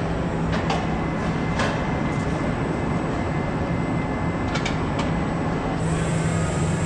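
Factory assembly-line machinery running with a steady low hum, with a few short clicks about half a second, a second and a half, and five seconds in, and a faint high hiss near the end.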